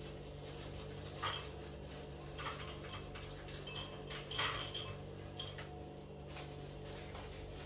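Faint kitchen handling: a few light clinks and taps of utensils and dishes, some with a brief high ring, over a steady low hum.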